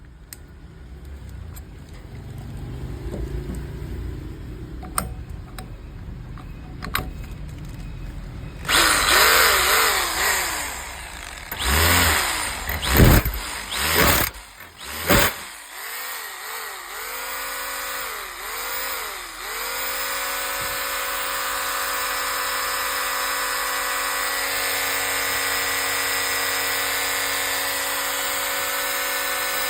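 Makita 800 W electric hammer drill. A low rumble comes first; about a third of the way in the drill starts with loud bursts, its pitch rising and falling as the speed changes. After that it runs on steadily at one even speed.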